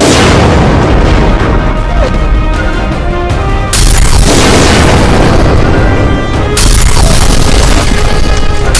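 Loud booms and explosion crashes over music, with three big hits: one at the start, one a little under four seconds in, and one between six and seven seconds in.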